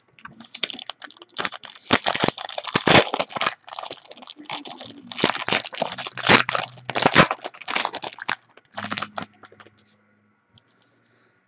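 Foil wrapper of a trading-card pack crinkling and tearing as it is ripped open by hand. The crinkling comes in irregular bursts and dies down a couple of seconds before the end.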